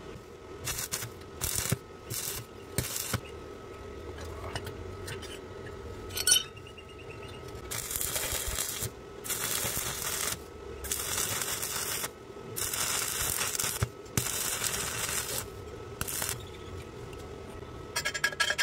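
Stick arc welding: the electrode's arc crackles and hisses in separate runs as holes in a steel tube are plug-welded, a few brief strikes at first, then longer runs of a second or two with short breaks. A steady hum sits underneath.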